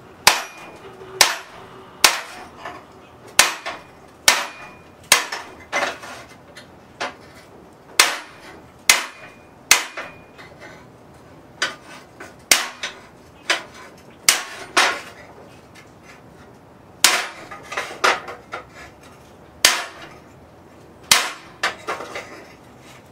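Hand hammer striking a fullering tool held on a warm railroad spike that rests on a sheet of aluminum over the anvil, lightly marking the cut line for a tomahawk blade. Sharp metallic blows come about once a second, some ringing briefly, with a couple of short pauses.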